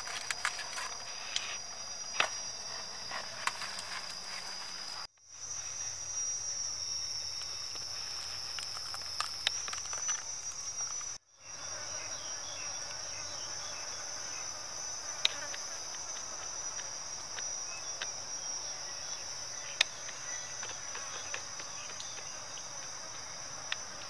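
Steady high-pitched chirring of insects, with scattered small clicks and rustles during the first five seconds. The chirring cuts out briefly twice, about five and eleven seconds in, and comes back at a slightly different pitch each time.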